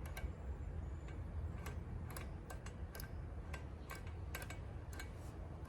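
Irregular light clicks and taps of hand tools and metal engine parts being handled during a small engine teardown, over a steady low hum.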